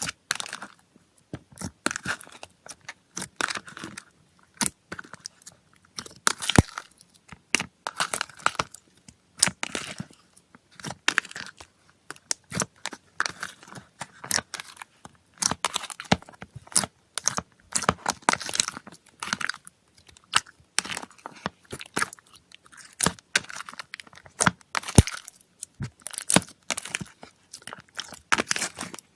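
Slime being squeezed and pressed by hand, making a dense, irregular run of sharp pops and crackles.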